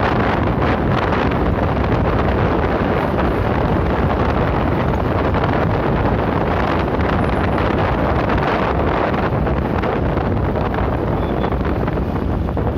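Loud, steady wind rushing over a phone microphone on a moving motorcycle, with the low rumble of the ride underneath.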